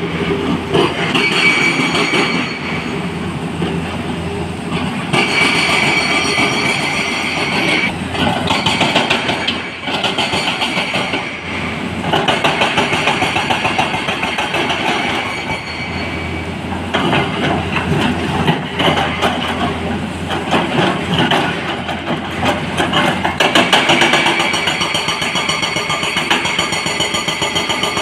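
Excavator working in a quarry, its diesel engine and hydraulics running under load with a continuous fast rattling clatter of steel and rock. The sound changes every few seconds with the machine's work cycles.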